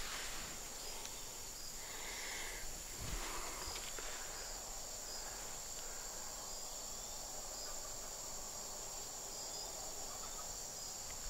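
Insect chorus: a steady high-pitched drone.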